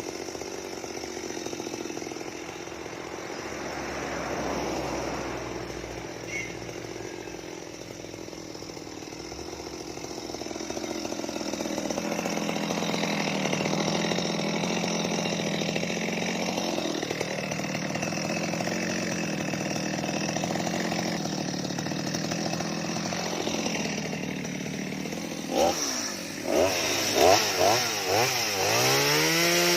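Stihl MS 230 two-stroke chainsaw running and cutting wood, its engine pitch sagging and recovering under load. Near the end the throttle is blipped several times, then the saw is revved up to a high steady pitch.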